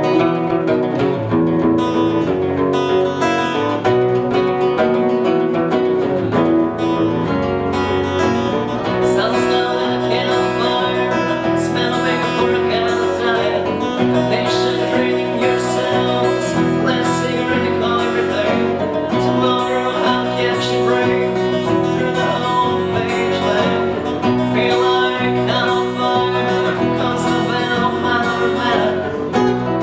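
An unplugged band playing: several acoustic guitars over a bass guitar, a steady, full passage of music.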